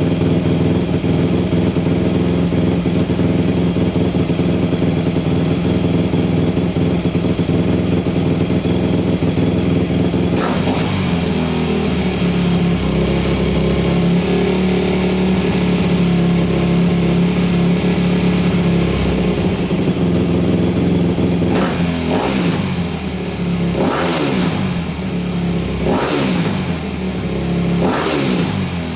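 2004 Yamaha YZ250F four-stroke single-cylinder engine running after its bottom-end rebuild with a new crank. It holds a steady note, shifts to another steady speed about ten seconds in, and over the last several seconds is revved in a string of short throttle blips.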